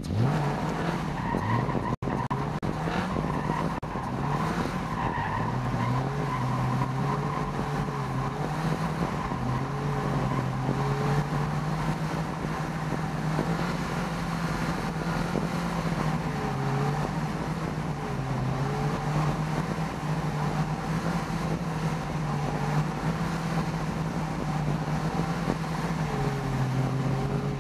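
Caterham Superlight's engine held at high revs, rising and falling over and over as the car is thrown around with its tyres spinning. Tyres squeal and skid in wavering tones throughout.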